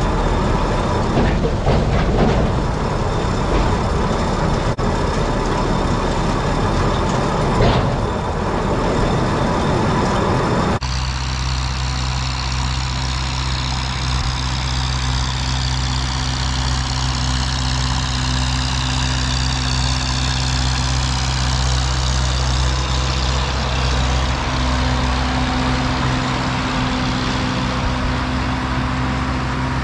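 Tractor engine running steadily while spreading fertilizer. For the first eleven seconds or so it is rougher and noisier; then it changes abruptly to a smooth, steady engine drone.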